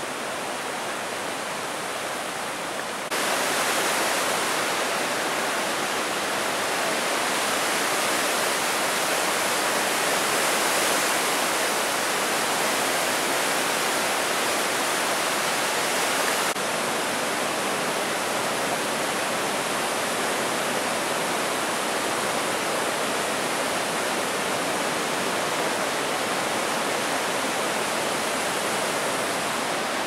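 Steady rush of the Rhine Falls and its rapids, churning water with no break. It gets louder about three seconds in and drops back a little about halfway through.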